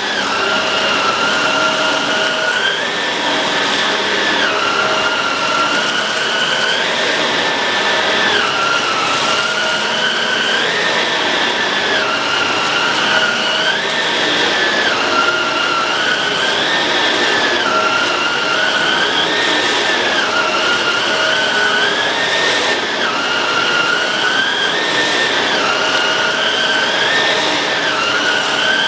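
Shark Rotator Pro Lift-Away NV500 vacuum cleaner running: a loud, steady motor whine that steps up in pitch and back down about every two seconds.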